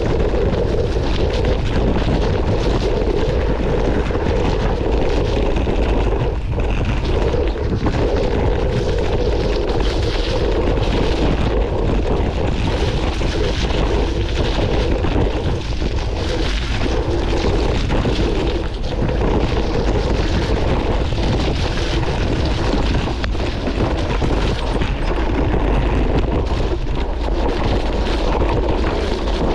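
Wind buffeting the microphone of an action camera on a mountain bike descending at speed, under the crunch and clatter of the tyres over a loose, rocky track and the bike rattling over the bumps.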